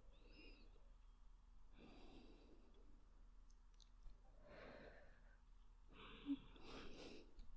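A woman's soft, slow breathing close to the microphone, about four gentle breaths a second or two apart, faint against near silence.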